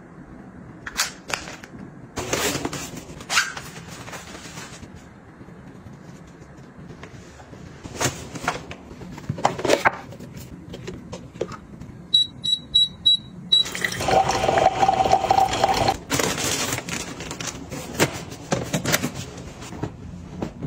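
Close handling sounds: clicks and knocks of a small plastic pill box, then crinkling of tissue paper. About twelve seconds in come four quick high electronic beeps, followed by about two seconds of louder rushing noise and more rustling.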